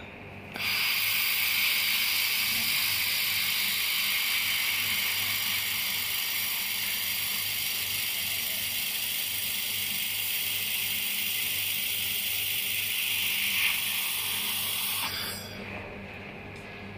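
Handheld laser welder with wire feed welding a mitred joint in square steel tube: a steady hiss that starts suddenly about half a second in and cuts off about fifteen seconds in.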